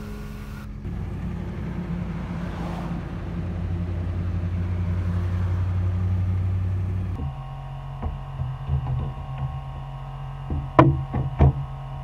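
Pickup truck driving, heard from inside the cab: a steady low engine and road rumble that swells and then cuts off about seven seconds in. A few sharp knocks follow near the end.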